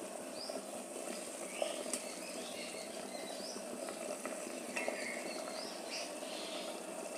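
Water boiling in a steel pot on a gas burner turned up to full flame, a steady hiss with small bubbling pops, as rice-flour fara dumplings are lowered into it. A couple of faint clicks come about two and five seconds in.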